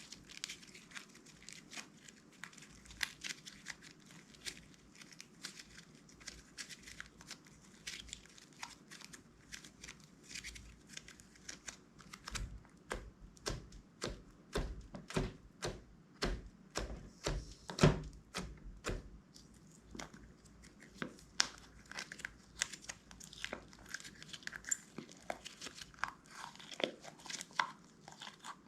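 Clear slime being squished, stretched and folded by hand, giving many sticky clicks and crackling pops. Louder, deeper squelches come in a run through the middle.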